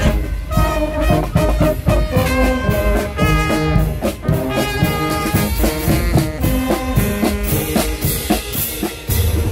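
Costumed marching band playing a tune: sousaphones, trumpet and saxophone over a steady beat of drums and crash cymbals.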